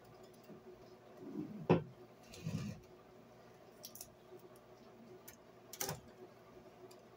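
A few soft clicks and knocks from eating at the table, the loudest about a second and a half in, over a faint steady hum.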